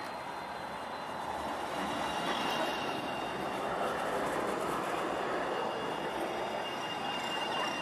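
A tram rolls slowly past at close range through a curve in the tracks. The noise of its wheels and running gear grows louder from about a second in, and a thin, high wheel squeal rises near the end.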